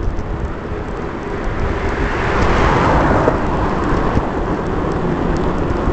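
Loud rushing noise and low rumble from wind and rolling on a Polaroid Cube action camera during a mountain-bike ride, swelling louder around the middle.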